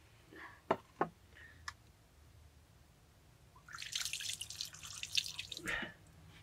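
Water poured from a plastic jerrycan in a thin stream over hands and a bowl, splashing onto an earthen floor, starting a little past halfway through and stopping shortly before the end. Before it, a couple of short knocks while raw chicken is handled in a metal bowl.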